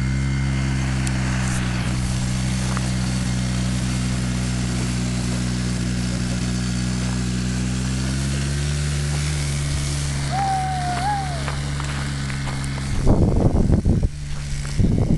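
Quad (ATV) engine running at a steady speed, its pitch rising slightly about eight seconds in. A short tone rises and falls about ten seconds in. Near the end, loud bursts of rough noise cover the engine.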